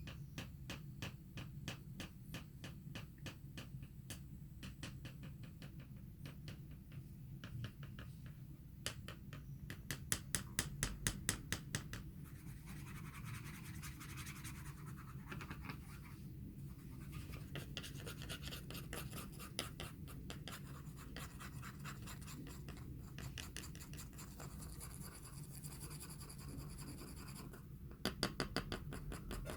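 Fingers tapping and scratching on a floor in long runs of quick, even taps, with louder runs about ten seconds in and again near the end.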